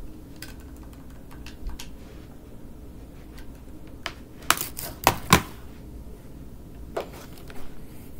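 Scattered clicks and knocks of hard objects being handled close to the microphone, with a cluster of sharp clacks about halfway through and another click near the end.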